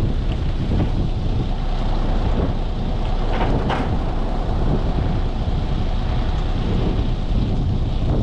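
Wind buffeting the microphone, a steady low rumbling noise.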